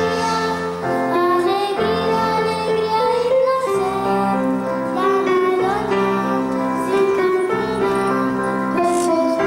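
Children's choir singing a slow song to electronic keyboard accompaniment, the chords changing about once a second.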